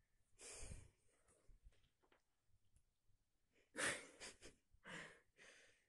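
Faint breathing sounds: a few short, breathy puffs, the loudest about four seconds in, with quiet room tone between them.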